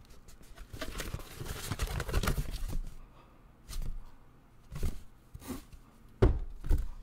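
A cardboard box being opened and handled: its flaps are pulled back with a run of scraping and rustling, then the box is shifted in short bursts, ending in a couple of dull thumps, the first of them the loudest sound.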